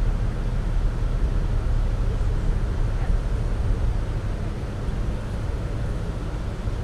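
Tour boat's engine running steadily under way, a low drone, with water washing along the hull.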